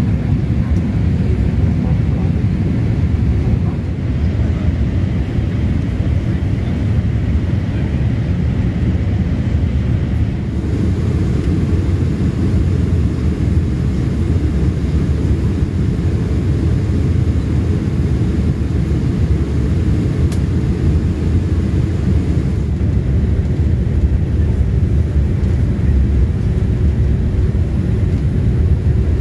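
Steady low rumble of a Boeing 787-8 on its approach, its Rolls-Royce Trent 1000 engines and the airflow heard from inside the cabin.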